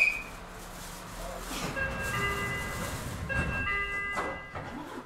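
Inside a train car standing at a platform: a short, sharp high sound at the very start, then a chime of several steady tones sounding twice, about a second apart, over a low rumble.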